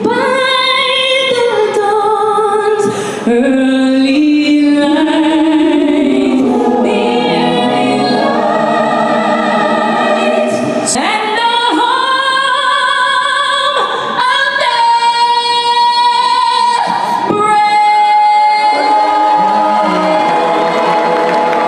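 A mixed group of men and women singing together in harmony, with long held notes.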